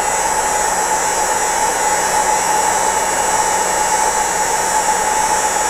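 Handheld heat gun running: a steady rush of blown air with a constant whine.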